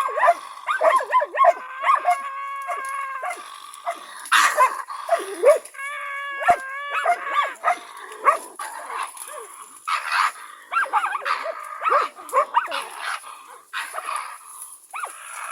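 Karelo-Finnish Laika hunting dogs barking and yelping in rapid, excited bursts as they bay a cornered raccoon dog. Twice the barking gives way to a drawn-out whining howl.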